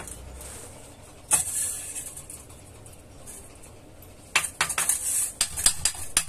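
Hammer tapping on the rusty metal housing of a small domestic water pump, making sharp metal-on-metal clinks. It seats the reassembled pump cover and its nuts. One strike comes about a second in, then a quick run of taps near the end.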